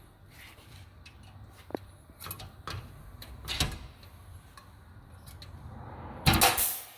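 Scattered clicks and knocks of hand tools and a metal bracket being fitted against a vehicle's body panel, with a louder half-second noisy burst near the end.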